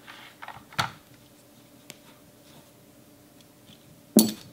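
Light clicks and knocks from handling an iMac logic board and its metal heat sink bracket, with a louder clatter about four seconds in. A faint steady hum runs underneath.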